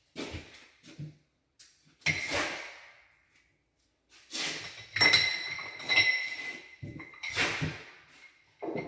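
Tiling work at a backsplash: a series of knocks and scrapes from handling ceramic tiles and tools against the counter and wall, the loudest about five to seven seconds in with a short ringing tone.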